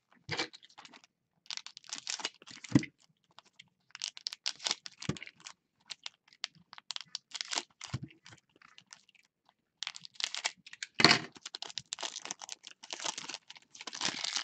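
Foil trading-card pack wrappers crinkling and crackling as they are handled in gloved hands, in irregular bursts with short gaps, the loudest crackle about eleven seconds in.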